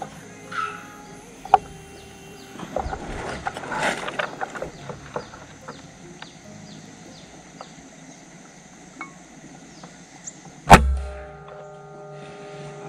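A PCP air rifle fires once, a single sharp, loud shot about eleven seconds in, after a quiet stretch with a run of short high chirps.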